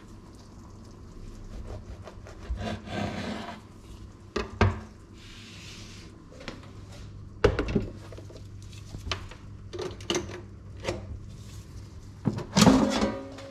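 A kitchen knife sawing through bread on a wooden cutting board, with scraping on the board and a few knocks as knife and bread are moved. Near the end comes a louder plastic clatter as the air fryer basket is pulled out.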